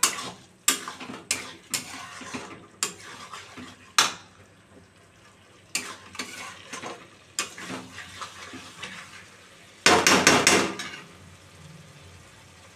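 Flat steel spatula stirring and scraping chicken and onions in a metal kadai, with sharp metal-on-metal clanks every second or so over a low frying sizzle. About ten seconds in comes a quick burst of loud clanks, after which the stirring stops and only the sizzle remains.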